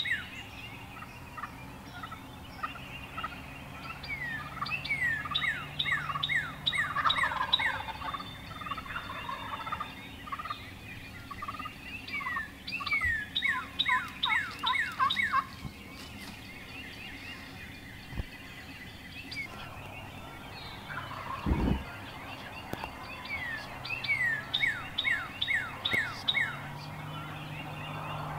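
Wild turkey gobbling a couple of times amid a dawn chorus of songbirds, which sing runs of quick, falling whistled notes.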